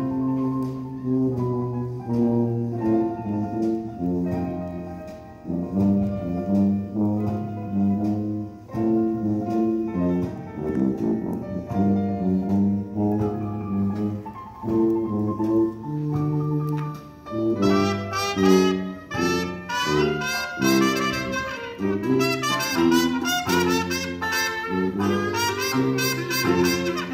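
Music from a vinyl test record played on a pair of vintage Advent 3 loudspeakers: a steady bass line under mid-range notes, with brighter, busier upper parts joining about two-thirds of the way in.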